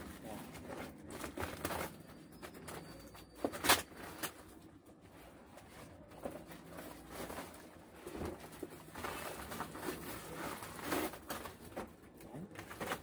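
Plastic shrink wrap being pulled and crinkled off a cardboard box, with rustling, crackles and a sharp snap about four seconds in, and the box shifted and handled.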